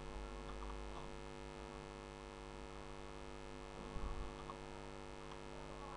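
Steady electrical mains hum with a stack of overtones, picked up by the recording setup, with a few faint short clicks.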